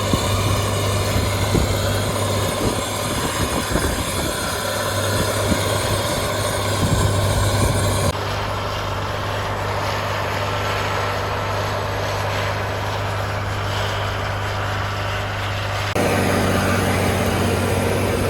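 Challenger 875C tractor's diesel engine running steadily under load while pulling a Gaspardo Diablo 600 disc harrow, with a strong low hum and scattered knocks in the first half. The sound changes abruptly twice, about halfway through and near the end.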